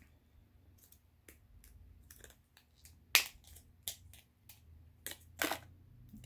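Scattered light clicks and crinkles of a small plastic-wrapped eyeshadow pan being unwrapped and handled, with a sharper click about three seconds in and another near the end.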